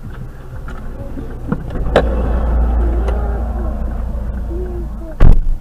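Dashcam microphone pickup after a road crash: a low rumble that swells about two seconds in, with short wavering tones over it, and one loud sharp knock near the end.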